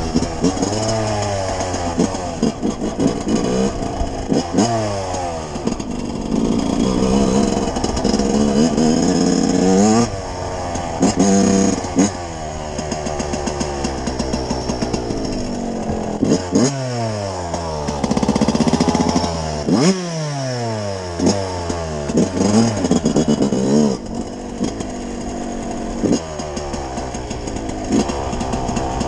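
Yamaha YZ125 two-stroke dirt bike engine being ridden hard, its pitch climbing steeply and dropping back again and again as the throttle is opened and closed and the gears are changed.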